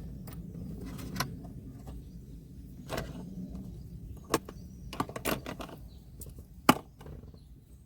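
Scattered light clicks and taps of metal and plastic from a stereo mounting bolt being fitted back into a car dash by hand, with the sharpest click a little before the end, over a low steady hum.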